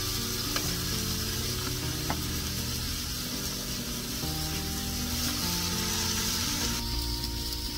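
Slices of pork belly sizzling on a hot round griddle pan over a portable gas stove as they are laid on one by one, the sizzle getting louder near the end. A couple of faint light clicks.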